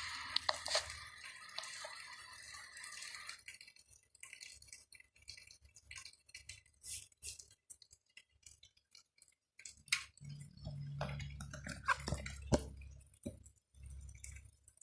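Background music fading out about three seconds in, followed by scattered faint clicks and light clinks of small hard objects being handled, with a few soft low bumps later on.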